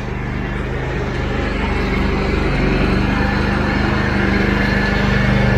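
Engine running steadily at a constant speed, slowly getting louder, its pitch stepping up slightly about halfway through.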